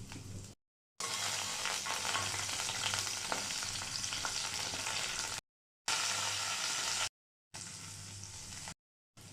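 Food frying in hot oil in a pan, a dense crackling sizzle. It comes in several short takes cut together, with brief dead-silent gaps between them; the longest and loudest take runs through the first half.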